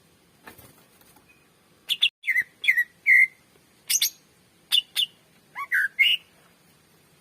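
Cucak ijo (greater green leafbird) singing: a rapid string of short, sharp whistled notes, several sliding down in pitch, starting about two seconds in and stopping about six seconds in.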